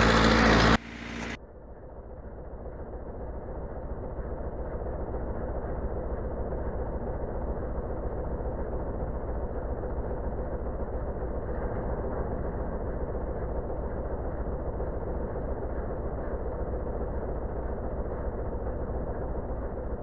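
Farm tractor engine running steadily, heard muffled and dull, fading in over the first few seconds.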